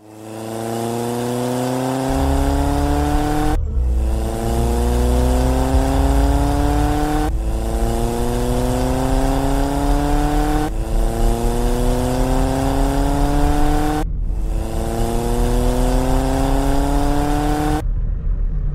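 Looped sound effect of a car engine accelerating. The same rising engine note repeats about every three and a half seconds, five times, with a steady low rumble beneath. It cuts off suddenly near the end.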